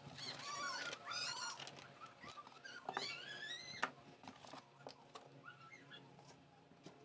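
An animal calling in the background: a run of short, high chirping calls, then one longer call rising in pitch about three seconds in. A few soft clicks of plastic packaging being handled.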